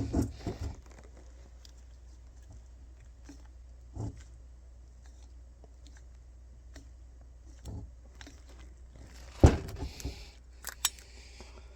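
Scattered small metallic clicks and clacks from the KDX200 cylinder's power valve mechanism being worked by hand. The sharpest clack comes about nine and a half seconds in, with a couple more soon after.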